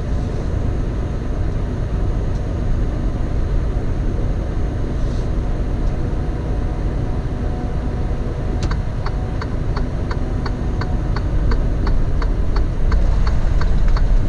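Semi truck cab while driving: steady diesel engine and road drone. About two-thirds of the way through, a turn-signal indicator starts ticking, about three ticks a second.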